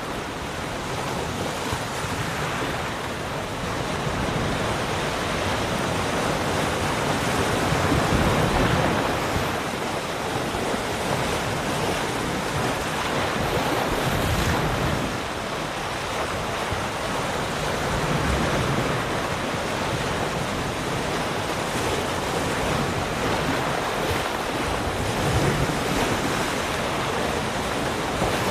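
Ocean waves breaking and washing on a shore, a steady rush that swells and eases every several seconds, with some wind noise on the microphone.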